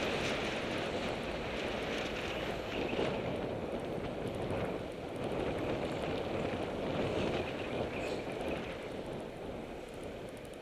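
Wind rushing over a bicycle-mounted camera's microphone, mixed with tyre and street noise, while riding along a city street. It eases off near the end as the bike slows to turn at a corner.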